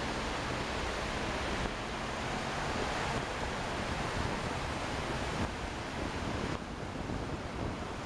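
Steady road noise of a moving car heard inside the cabin: an even hiss of tyres on the road over a low engine rumble, a little quieter in the last couple of seconds.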